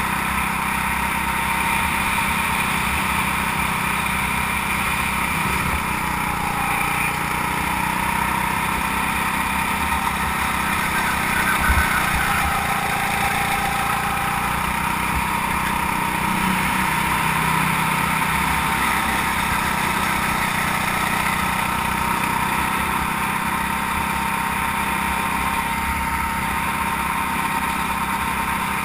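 Go-kart engine running steadily under throttle, heard from on board the kart, its pitch dipping and rising slightly through the corners. A brief thump near the middle.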